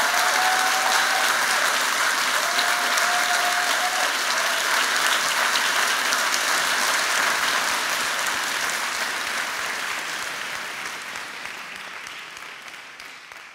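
Audience applauding steadily, fading out over the last few seconds.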